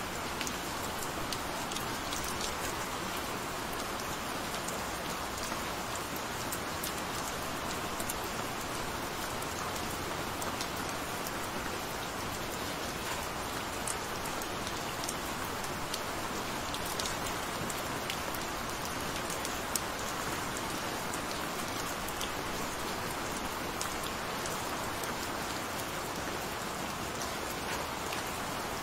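Gentle rain falling steadily: an even hiss of rain with scattered sharp ticks of single drops striking a surface.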